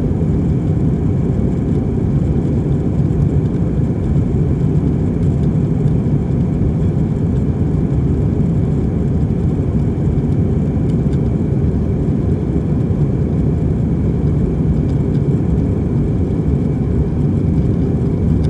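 Steady cabin roar inside an Airbus A320-232 climbing after takeoff: its IAE V2500 turbofan engines and the airflow make a deep, even rumble.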